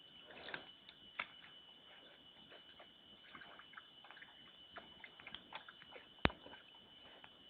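A bear making wet splashing and dripping sounds while digging for food in a water-filled hole: scattered small wet clicks and splashes, with one sharp click about six seconds in.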